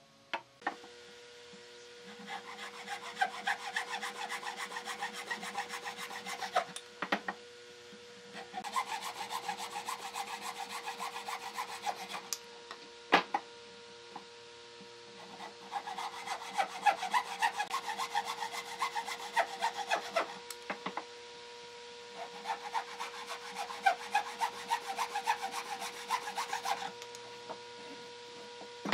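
Hand saw cutting into a wooden block in four spells of quick rasping strokes, with short pauses between them and a few knocks. A faint steady hum runs underneath.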